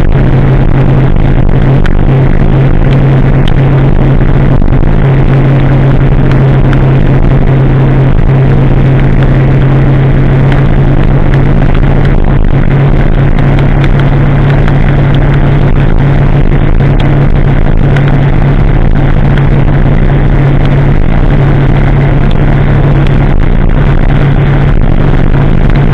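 Kawasaki ZX-10R inline-four with a de-catted aftermarket exhaust, cruising at a steady speed. Its engine note holds one pitch throughout, under a loud, steady rush of wind and wet-road noise.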